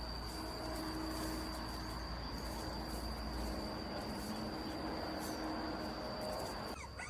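Rural outdoor ambience: a steady high-pitched insect drone over a noisy background, with a low rumble that fades out a little past halfway. Right at the end a puppy begins to whimper.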